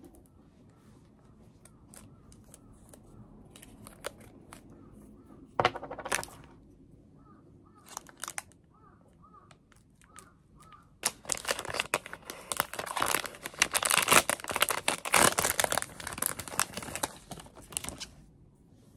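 Crinkling and rustling of a plastic tape package being handled and opened, loud and dense for about seven seconds in the second half. Earlier, a short rip as masking tape is peeled off its roll, among small clicks of handling.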